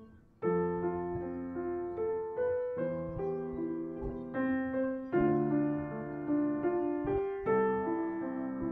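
Background piano music: a slow melody of struck notes and chords that each ring and fade; it starts again about half a second in after a brief quiet moment.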